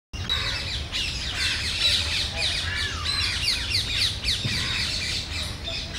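Birds chirping in a dense chorus, many short calls sweeping downward in quick, overlapping succession, over a low steady rumble.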